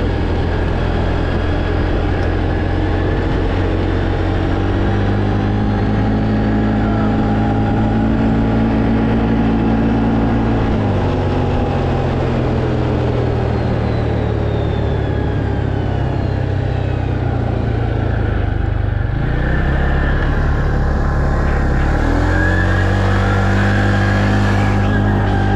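Tracker ATV engine running under way, its pitch climbing and dropping several times as it speeds up and slows, over steady noise.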